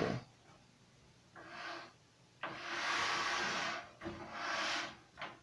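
A person's breaths close to the microphone: a few hissing breaths in and out, each lasting about a second, the middle one the longest and loudest.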